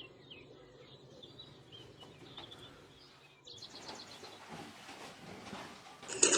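Faint bird chirps over quiet background hiss. About halfway through, the background changes abruptly to a fuller hiss with a few faint knocks.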